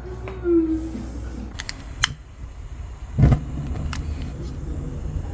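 A few sharp clicks and one heavier thump about three seconds in, from household things being handled and set down, over a steady low hum; a brief vocal sound near the start.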